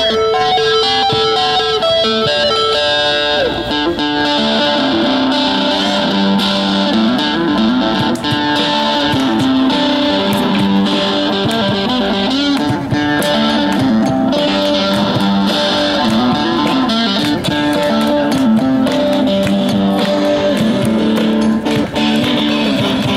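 Live rock music played on an electric guitar, loud and steady, with changing notes and chords.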